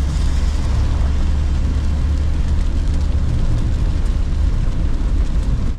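VW Kombi camper van driving on a wet highway, heard from inside the cab: a steady low engine and road rumble with tyre hiss from the wet road. It cuts off suddenly at the end.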